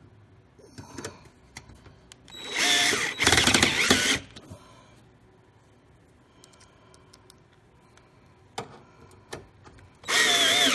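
Black & Decker 12-volt cordless drill/driver driving screws into the end of a fireplace blower fan housing. It runs in a burst of about two seconds, with a brief dip midway, starting about two seconds in, and again briefly near the end, with light clicks of parts and screws being handled between.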